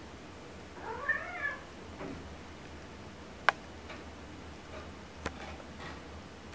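Norwegian Forest Cat giving one wavering meow about a second in, then softer chirping calls later as it climbs. Two sharp knocks, one in the middle and one later, from the cat's paws on the wooden wall shelves.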